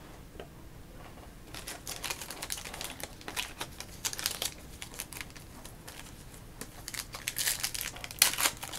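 Hockey card pack wrapper crinkling as packs are opened, and the cards handled and flipped through: a run of quick rustles and clicks that starts about a second and a half in and grows louder near the end.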